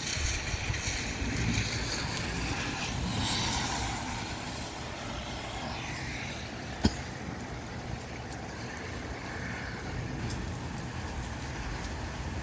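Gusty wind and rain in a storm, with wind rumbling on the microphone, louder over the first few seconds. A single sharp click about seven seconds in.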